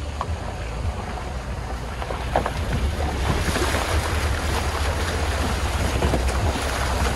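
A car rolling slowly through a shallow stream crossing: water rushes and splashes around the tyres, growing louder about halfway through, over the low steady hum of the engine. Wind buffets the microphone.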